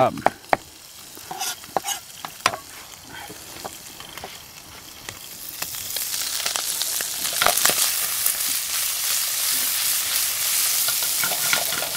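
A few sharp knife taps on a cutting board as a shallot is rough-chopped. About five seconds in, a frying pan of beef and garlic starts sizzling loudly as the shallot goes in and is stirred.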